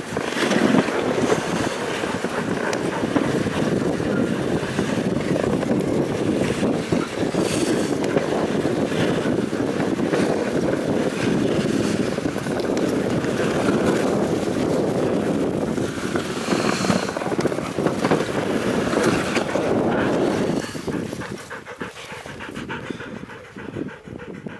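Dog sled moving over snow behind a team of huskies: a steady rushing noise of the sled and wind on the microphone. About three-quarters of the way through it drops away, and huskies pant close by.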